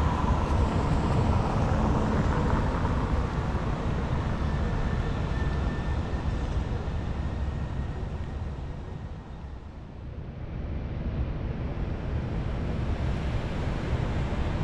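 Road traffic through a city intersection: a van driving off close by, the noise fading to a lull about two-thirds of the way through, then rising again as more vehicles approach.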